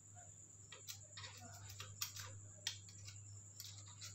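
Faint, irregular metal clicks and light taps, about half a dozen, as a screwdriver works the cam chain onto the camshaft sprocket of a Yamaha Mio Sporty engine, over a steady low hum.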